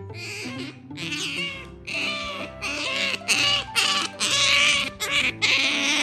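Asian small-clawed otter giving high-pitched squealing calls in quick succession, louder from about three seconds in: its affection-seeking call while begging for attention.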